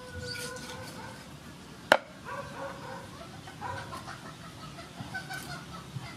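Meat cleaver chopping through a duck carcass onto a wooden chopping block: one sharp, loud chop about two seconds in, with lighter knocks later. Animals call in the background.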